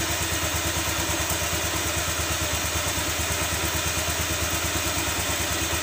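Automatic scooter's single-cylinder engine idling steadily, with an even, rapid exhaust pulse.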